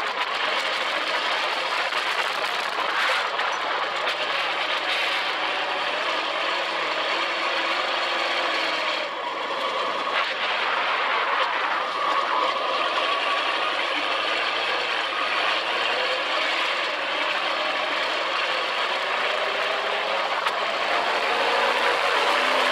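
Dune buggy's engine running under load while driving over sand, under a heavy rush of wind noise. The engine note rises and falls with the throttle, drops away briefly about nine seconds in, and climbs again near the end.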